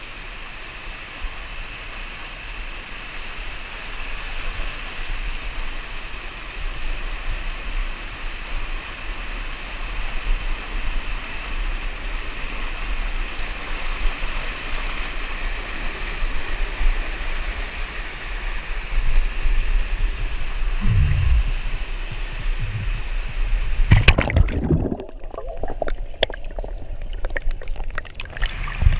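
Underground cave river rushing over rocks: a steady rush of water that grows louder a few seconds in. Near the end come loud knocks from the camera being handled, then a few seconds of muffled low rumble before the rush returns.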